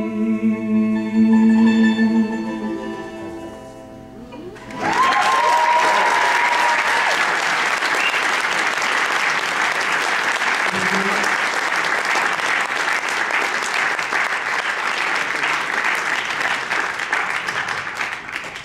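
A folk band's last held chord, voices with acoustic guitar and banjo, rings on and fades out over the first few seconds. About five seconds in, the audience breaks into loud applause with cheers and whoops, which carries on steadily.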